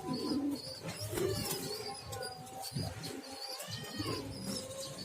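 Grey domestic pigeon cooing in short hoarse calls. The owner says its coo has turned into a cough that sounds "cekrek-cekrek", which he takes for a respiratory illness.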